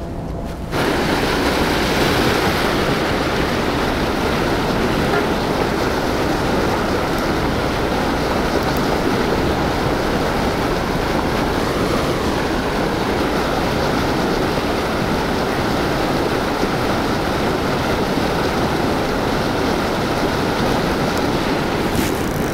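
Loud steady rush of churning river water, starting abruptly about a second in.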